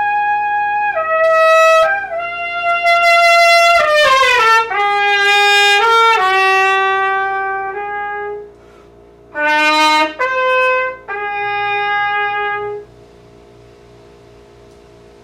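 Solo trumpet playing, unaccompanied, holding long notes. About four seconds in it drops in a long falling slide, then plays a few shorter held notes before stopping near the end.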